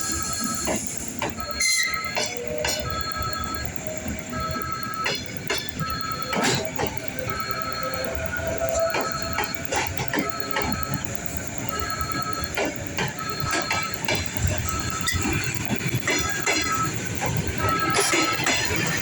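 Suburban electric train moving slowly through the station, its wheels clicking over rail joints and squealing. A steady electronic beep repeats evenly, about three times every two seconds.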